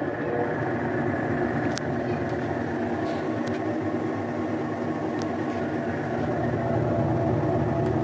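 Esmaltec EW60 top-loading washing machine in its spin cycle: the motor and basket running with a steady hum and whine, a little louder toward the end. The basket is now locked to the drive and spins with it, the fault that kept it from spinning having been fixed.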